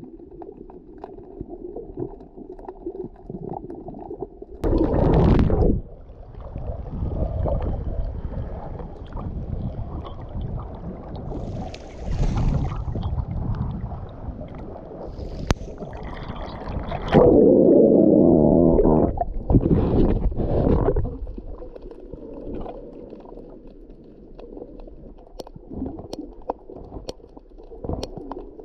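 Muffled water noise from a snorkeler's action camera moving in and out of the water: low rumbling and gurgling with several loud splashing bursts, the longest a little past halfway through.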